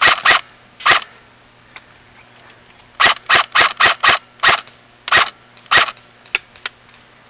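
Airsoft guns firing single shots as sharp cracks: a couple near the start, a quick string of about six from about three seconds in, two more after it, and fainter shots near the end.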